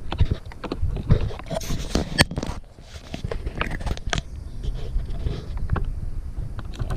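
Handling noise from a hand-held action camera being moved about close up: irregular scrapes, knocks and crackles over a low rumble.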